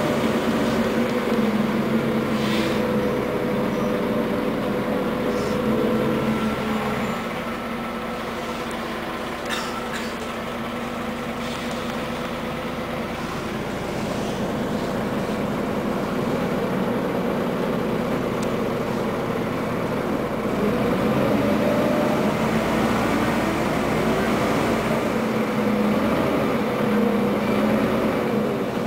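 Scania N94UA articulated city bus heard from inside the passenger cabin while under way. The engine rises in pitch as it pulls, drops back and quietens about seven seconds in, then climbs again through the second half, with a few brief rattles.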